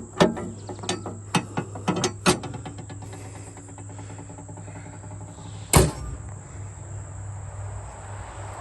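A quick run of clicks and knocks, then one loud bang a little under six seconds in, over a steady high-pitched insect drone.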